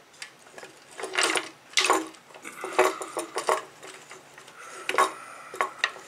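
Metal chain links and hard wooden toy blocks clinking and knocking together as a cut chain is worked loose with a cutting tool, in several short rattling bursts.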